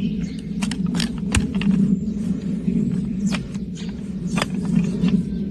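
Sharp, scattered clicks and cuts of a farrier's trimming tools biting into hard donkey hoof horn, about eight in a few seconds, over a steady low rumble.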